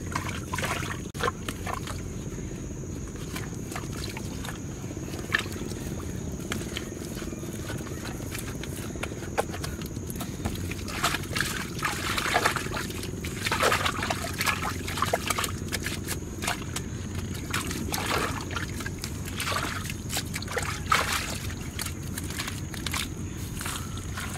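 Bare hands scooping and slapping wet mud and muddy water, irregular squelches and slaps that come thickest through the middle stretch. A faint steady high tone sits under it throughout.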